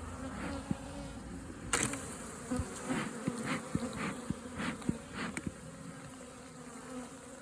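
Honeybees buzzing steadily around an open hive, with a sharp click about two seconds in and a run of lighter clicks and knocks over the next few seconds.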